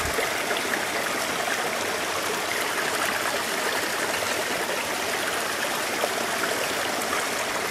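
Shallow rocky stream, water running steadily over and between rocks.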